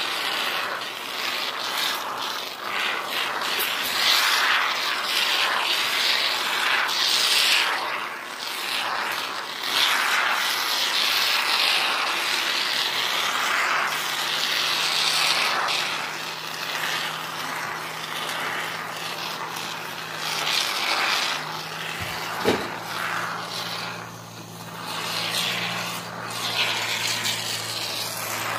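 Aerosol can of Great Stuff expanding polyurethane foam hissing as foam is sprayed out through its straw nozzle, coming in uneven spurts that swell and fade. A low steady hum joins about halfway through, and there is a single sharp knock about two-thirds of the way in.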